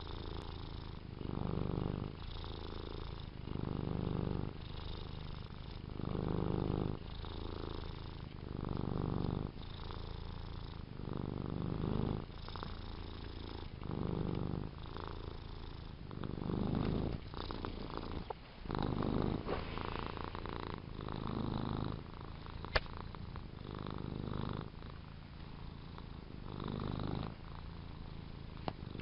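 A cat purring close up: a continuous low rumble that swells and eases with each breath, about once every second and a half. One sharp click late on.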